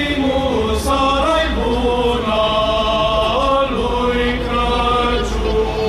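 Male a cappella choir of Orthodox clergy singing a chant in several parts, holding long notes that move together from chord to chord.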